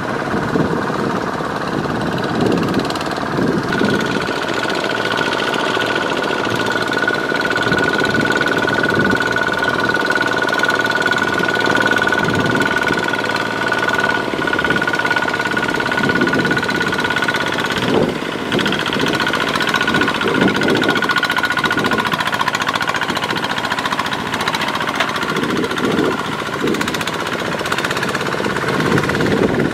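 Kubota RT140 walking tractor's single-cylinder diesel engine running hard under load with a steady knocking beat, as its cage wheels churn through flooded paddy mud. A steady high whine sits over the engine throughout.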